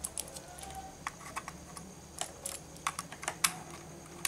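Irregular light clicks and taps of a VGA cable plug being handled and fitted into a desktop motherboard's VGA port.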